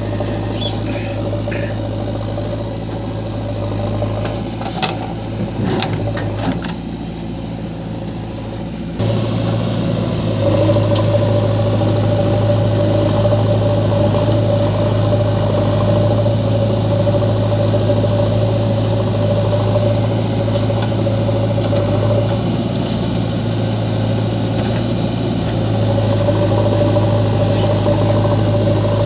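Heavy diesel engine running steadily, with a few sharp knocks about four to six seconds in. It gets louder and higher in pitch from about nine seconds in, as if under more throttle.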